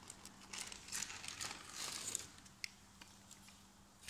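Small wood fire in a folding metal firebox stove, crackling faintly with irregular pops.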